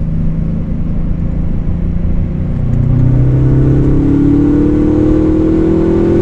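Subaru Legacy GT's turbocharged flat-four under acceleration, heard from inside the cabin. A steady engine drone gets louder about three seconds in and then climbs steadily in pitch as the revs rise, with the boost-controlled exhaust cutout opening under boost.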